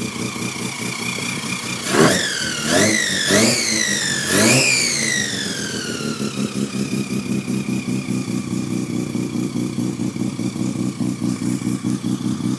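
Mazda 12A bridgeport two-rotor rotary engine idling with a pulsing, lumpy beat, then revved four times in quick succession about two seconds in; the last rev is the longest and winds down slowly back to idle.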